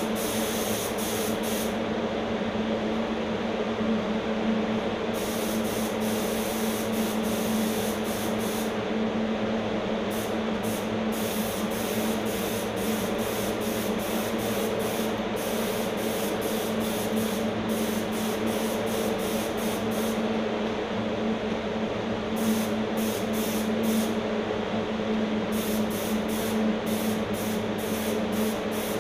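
HVLP spray gun hissing as it sprays paint onto an engine block, the hiss coming in on-and-off bursts as the trigger is pulled and released, with a few pauses of a couple of seconds. A steady motor hum from the air supply runs underneath.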